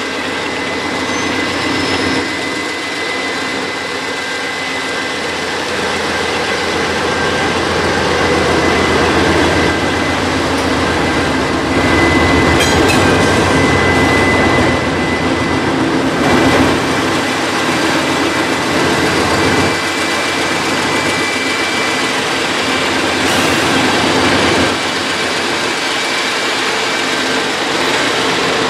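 Three GE diesel-electric freight locomotives (a C40-8W, a C40-9 and a C44-9W) passing close by, their 16-cylinder engines running and steel wheels rolling on the rails. A steady high whine sits over the engine sound, which grows louder as the units go past, peaking about halfway through.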